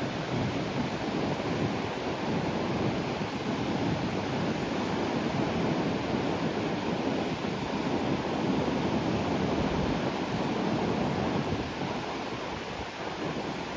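Sea waves breaking and washing onto the shore, a continuous surf noise that swells through the middle and eases near the end.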